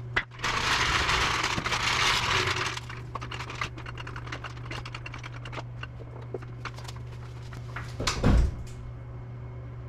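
Garage tool noises over a steady low hum. A hiss lasts about two and a half seconds at the start. Scattered light clicks and taps follow, then one heavy knock near the end.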